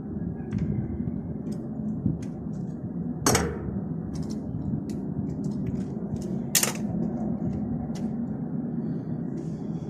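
Tools and parts being handled during a repair: scattered light clicks over a steady low rumble, with two sharp knocks, one about a third of the way in and one about two-thirds in.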